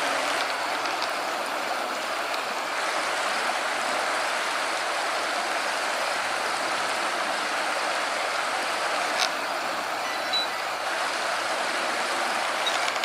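Steady rush of shallow, fast water running over a stream riffle, with two brief clicks late on.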